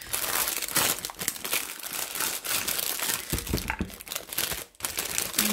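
Clear plastic wrapping crinkling as a three-piece set of craft paper punches is unwrapped by hand, with a few dull thumps about three and a half seconds in.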